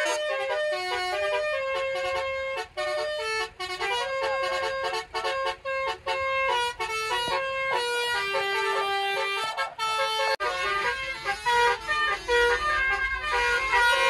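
Vehicle's basuri musical air horn playing a tune: a run of held horn notes, several sounding together, stepping up and down in pitch with short breaks between phrases.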